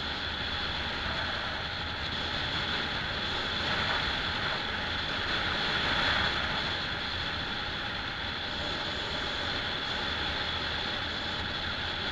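Steady road and wind noise of a car driving, with a faint steady high-pitched whine over it; the noise swells a little about four and six seconds in.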